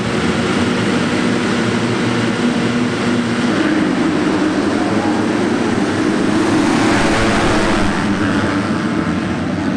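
A full gate of 250cc motocross bikes, many engines revving together on the start line and then running at full throttle as the pack pulls away off the start.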